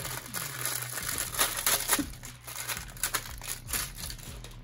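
Clear plastic packaging crinkling irregularly as a roll of black cohesive sports wrap is handled and taken out of its bag.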